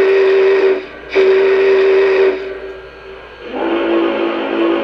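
Steam-whistle sound from the onboard sound system of O gauge Lionel model steam locomotives, played through the models' speakers: two long blasts with a short break about a second in, then, after the second fades, a lower-pitched, wavering whistle comes in at about three and a half seconds.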